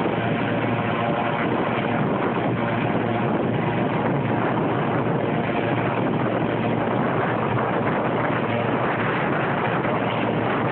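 Medevac helicopter's engine and rotors running steadily on the ground with the rotor spun up, shortly before it lifts off.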